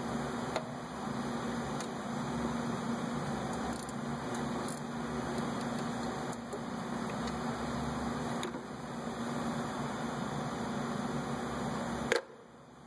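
Steady hum with a faint hiss, over which hand tools give a few scattered light clicks and knocks on metal while the alternator adjusting bolt is tightened; a sharper click comes near the end.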